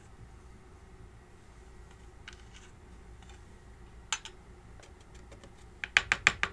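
Faint rustle and light clicks of copper embossing powder being poured over stamped cardstock in a small plastic box, then near the end a quick run of five or six sharp taps as the card edge is knocked against the plastic box to shake off the excess powder.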